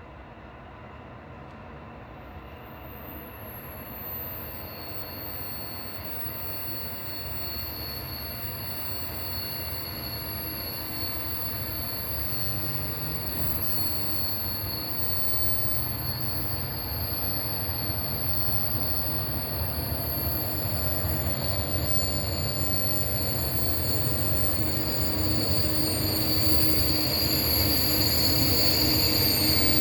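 Freight train drawing closer and growing steadily louder: an ÖBB Taurus electric locomotive hauling Eas open freight wagons, with a low rumble and high-pitched wheel squeal that strengthens toward the end.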